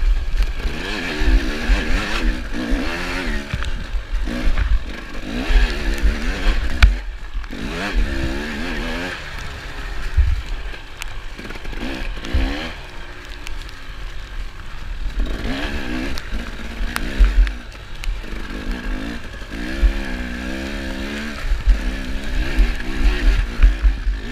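Dirt bike engine revving up and down over and over as it is ridden through deep mud in a harescramble race, with frequent low thumps.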